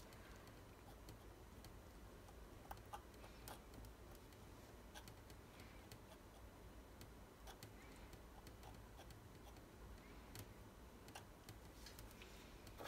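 Near silence with faint, irregular clicks and light scrapes of a metal palette knife laying thick acrylic paint onto a stretched canvas.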